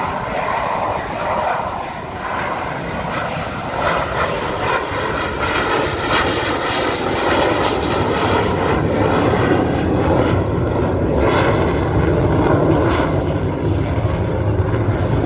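F-16 Fighting Falcon jet engine noise from a low flypast, a loud steady rush that slowly grows louder.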